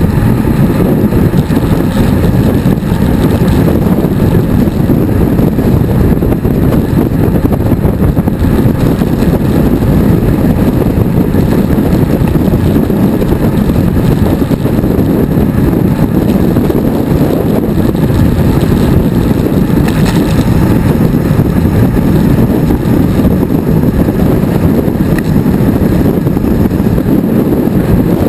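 Wind rushing over the microphone of a camera riding along on a road bike at speed: a loud, steady low rumble without a break.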